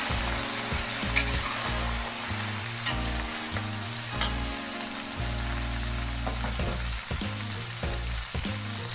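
Dried Medan anchovies deep-frying in hot oil in a wok: a steady, dense sizzle that eases slightly toward the end, as a metal ladle stirs them with a few light clicks against the pan.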